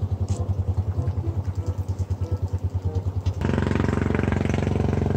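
A small engine running with a fast, even pulsing beat. About three and a half seconds in it turns suddenly louder and fuller and stays that way.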